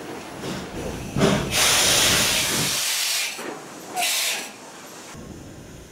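Steam tram locomotive letting off steam: one loud hiss about a second and a half in that lasts nearly two seconds, then a shorter burst about four seconds in.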